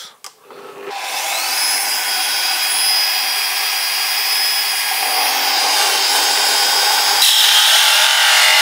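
Bosch electric drill in a drill stand starting up about a second in, its motor whine rising and then holding steady, as a 51 mm hole saw cuts into melamine-faced chipboard with a loud rasping noise of the teeth. About seven seconds in the cutting noise changes and grows a little louder as the saw bites deeper.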